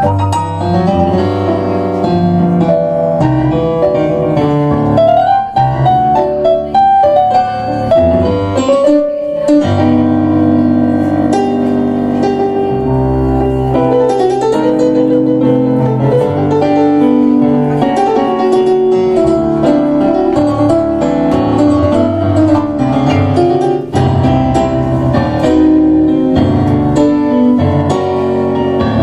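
Tango played as a piano duet on two digital stage pianos, one of them a Kawai MP6, with chords and melody lines running on without a break.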